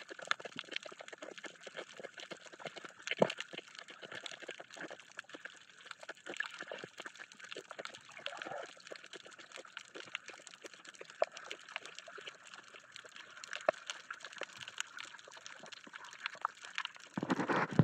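Underwater sound on a coral reef heard through the submerged camera: a steady crackle of many small irregular clicks over a muffled water hiss. Near the end a louder rush of water sets in.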